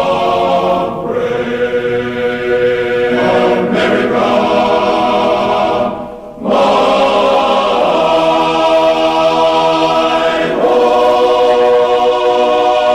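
Choir singing slow, held chords that change every few seconds, with a short break about six seconds in.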